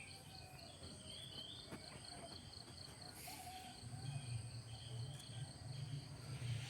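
Insects chirping, crickets by their sound: a steady high trill with a second chirp pulsing about five times a second. A low hum comes in about four seconds in.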